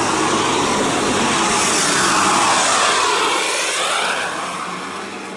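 Tour bus driving close past, its engine and tyre noise swelling to a peak about two seconds in, then fading as it moves away.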